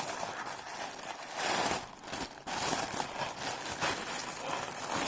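Packaging rustling and crinkling as it is handled and unwrapped, in irregular bursts of small crackles.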